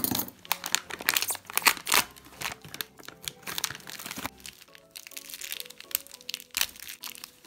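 Plastic blind-bag packet crinkling in many quick crackles as it is handled and opened by hand, over soft background music whose notes come through more clearly in the second half.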